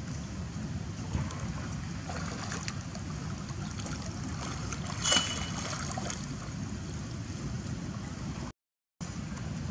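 Water splashing and lapping as monkeys swim in a pond, with scattered small splashes over a steady low rumble and a louder, sharper splash about five seconds in. The sound drops out briefly near the end.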